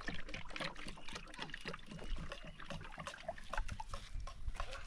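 Water trickling and splashing as small tea glasses are rinsed over a metal tray, with light, irregular clinks and knocks of glass and metal.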